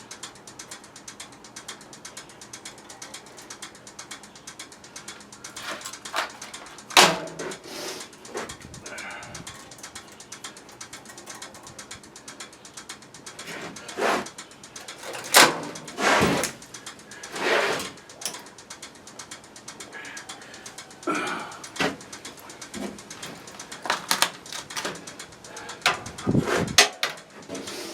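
Hand-tool work on a pressure washer: ratcheting and sharp metal clicks and knocks at irregular intervals, more of them in the second half.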